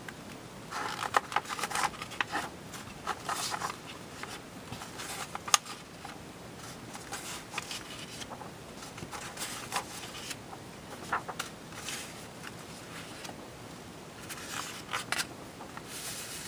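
Paper rustling as the printed pages of a model kit's instruction booklet are flipped and handled, in irregular bursts with one sharp snap about five and a half seconds in.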